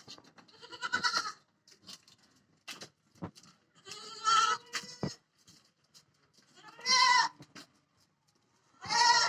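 Goats bleating: four loud calls a couple of seconds apart, the last one starting near the end, with a few faint knocks between them.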